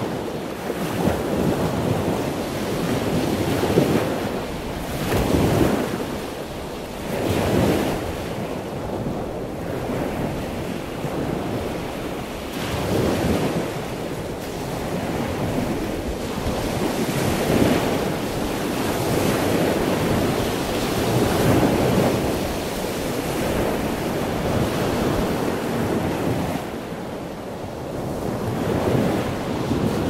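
Ocean surf: waves breaking and washing in, a steady rush that swells every few seconds as each wave arrives.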